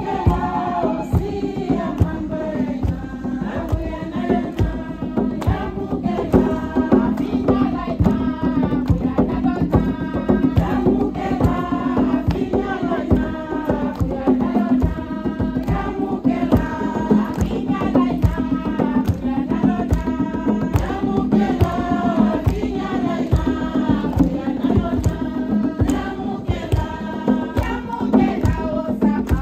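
Choir and congregation singing a hymn together, accompanied by hand-clapping and percussion.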